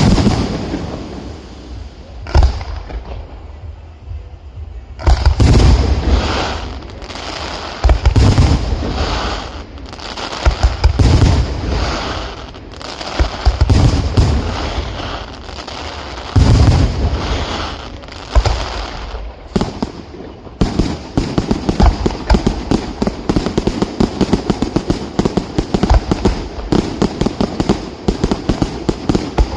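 Aerial fireworks display, shells bursting with loud bangs. It opens with two single bangs a couple of seconds apart, then a run of bursts about one a second, and about two-thirds of the way through it turns into a fast run of many small sharp cracks, several a second.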